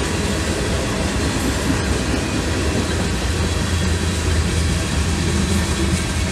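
Freight train of tank cars and covered hopper cars rolling past: a steady, deep rumble of steel wheels on the rails.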